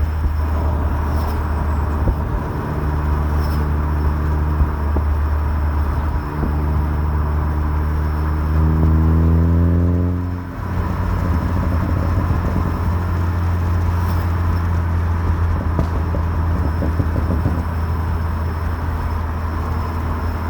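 Ford Focus ST running, its engine note steady at first, then climbing in pitch from about six seconds in. The note drops off sharply at about ten and a half seconds and gives way to a rougher, steady rumble.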